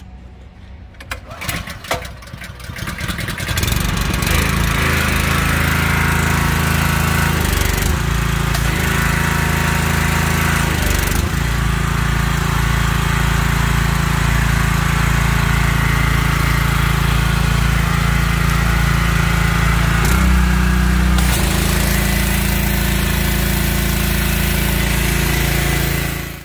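Honda gas engine on a pressure-washer skid being pull-started, catching about three seconds in and then running steadily as it drives the Viper pump, with the wand spraying water. The engine note shifts briefly about twenty seconds in.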